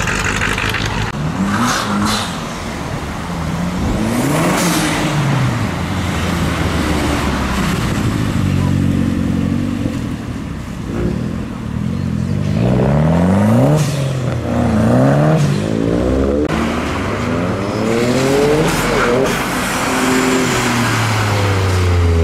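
Several cars driving past one after another as they pull away from a car meet, each engine rising and falling in pitch as it accelerates and passes. The revs climb repeatedly in the second half, with a loud low engine note at the very end.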